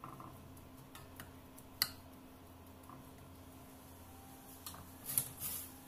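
Wooden spatula tapping and scraping against a stainless steel pan while stirring sliced onions: a few faint light clicks, the sharpest a little before two seconds in and a short cluster near the end.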